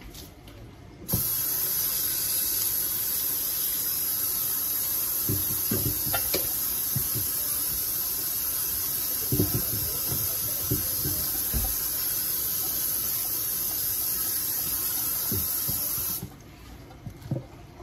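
A loud, steady hiss that switches on suddenly about a second in and cuts off just as suddenly near the end, with a few soft knocks and bumps under it.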